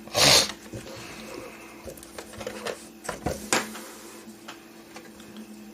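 Small plastic clicks and handling noises from prying at the clips of a car's overhead map-light console, with a short loud rush of noise just after the start. A steady low hum runs underneath.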